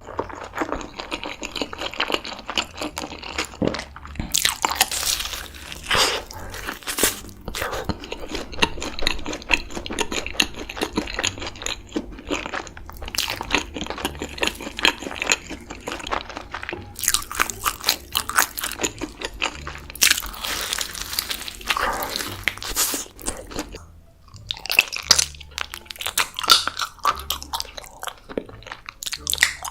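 Close-miked mukbang eating: loud crunching bites into crispy food followed by chewing, in an irregular run with louder crunches every few seconds.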